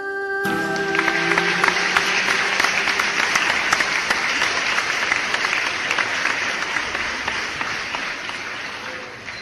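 Audience applauding: dense clapping that starts about half a second in and tapers off near the end.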